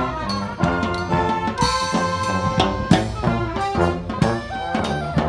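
Brass band playing live: horns over a sousaphone bass line.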